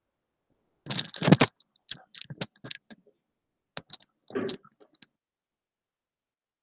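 Computer keyboard typing and clicking in short, irregular bursts, one about a second in and another around four seconds in.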